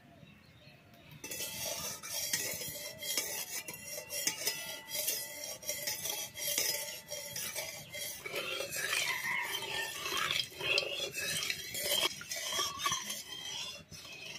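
Metal spatula scraping and clinking against the inside of a metal kadai as it spreads oil around the pan. The scraping starts about a second in and goes on in quick irregular strokes.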